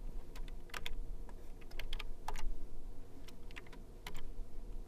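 Computer keyboard and mouse clicking: about fifteen light, irregular clicks and taps spread over a few seconds.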